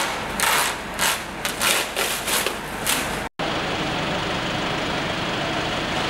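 Plastic sheeting crinkling and rustling in a quick string of bursts as it is pulled and handled. After a sudden cut a little over three seconds in, a vehicle engine idles steadily.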